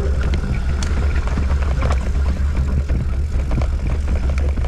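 Mountain bike riding down rough trail: a loud, steady wind rumble on the microphone with a scatter of rattles and knocks from the bike jolting over rocks and roots.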